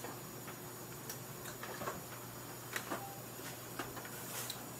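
Popcorn kernels heating in oil in a cooker pot, giving scattered light ticks and crackles at irregular intervals before popping gets going.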